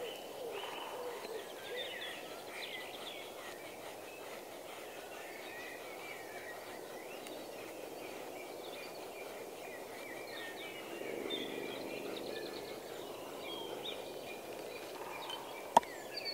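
The Jars Irbis bushcraft knife shaves thin curls off a stick of wood to make a feather stick, a soft repeated scraping, while birds chirp in the background. A single sharp knock comes near the end.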